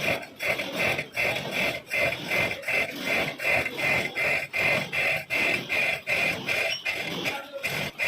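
Lathe cutting a coarse thread in a cast iron nut: a rhythmic scraping that pulses about two to three times a second.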